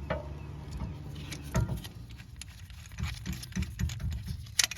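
Irregular metallic clicks and knocks of hand tools and brake parts being handled, over a low steady hum; the sharpest pair of clicks comes near the end.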